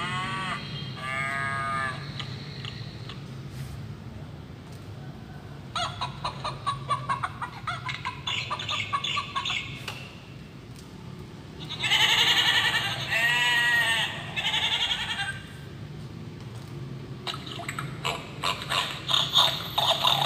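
Recorded farm-animal calls played one after another from a children's sound book's small electronic speaker: four separate bursts of calls a few seconds apart, thin and tinny with little bass.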